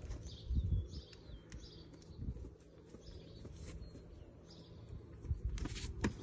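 Small birds chirping, short high calls every second or so, over low rumbling bumps on the microphone, with two sharp clicks near the end.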